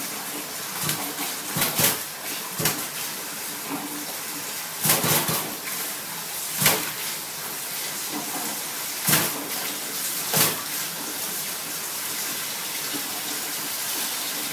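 Thin stream from a kitchen mixer tap running steadily into a stainless steel sink, with several brief, sharper sounds over it. The tap is fully open, so the weak flow is the sign of a poor water supply.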